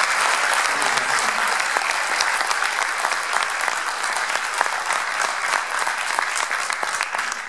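Audience applauding, a dense patter of many hand claps that begins to die down at the very end.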